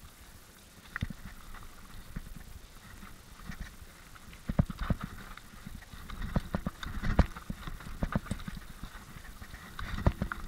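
Downhill mountain bike rattling and clattering over rocks and roots: a rapid string of sharp knocks as the wheels and frame take the hits, heaviest about four and a half seconds in, around seven seconds, and near the end, over a steady low rumble.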